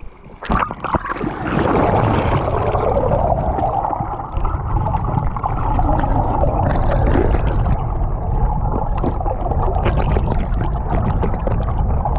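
Fast river current heard through a GoPro camera held under the water: a loud, muffled underwater rush with a heavy low rumble, and a few knocks about half a second in as the camera goes under.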